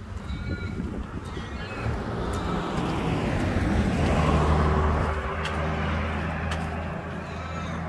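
A motor vehicle on the street going by: engine and tyre noise swell to their loudest about halfway through, then ease off to a steady low engine hum.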